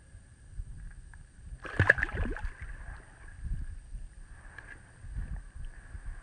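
Splash of a bluegill released back into a hole in the ice, about two seconds in, followed by a couple of quieter water and handling sounds.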